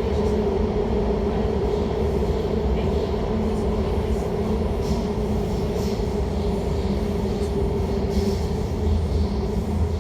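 Elizabeth line train running through a tunnel, heard inside the carriage: a steady rumble of wheels and motors with a constant humming tone and occasional faint clicks from the track.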